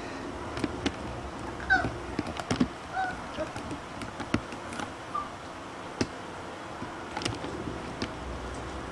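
Puppies giving a few short, high squeaks, with scattered light clicks and knocks between them.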